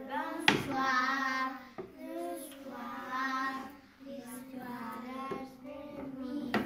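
Children singing a slow French goodnight song in long held notes, phrase by phrase. A sharp knock about half a second in, and another near the end.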